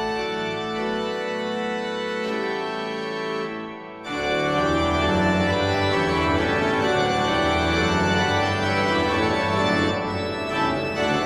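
Pipe organ playing slow, held chords. About four seconds in, after a brief dip, a louder, fuller chord with deep pedal bass comes in.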